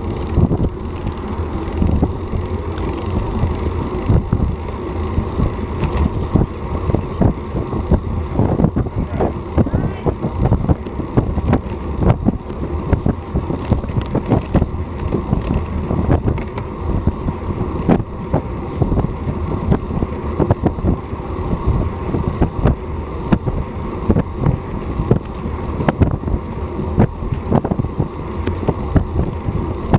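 Wind buffeting a Garmin VIRB action camera's microphone on a moving road bike, a steady low rumble broken by many irregular thumps, with tyre and road noise underneath.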